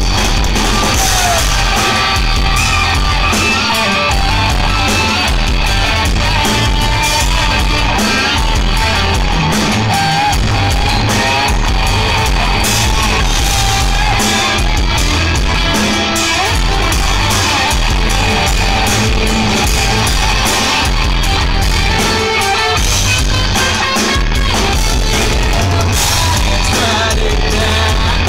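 Live rock band playing loudly: electric guitars and a drum kit with a singer's vocals over them.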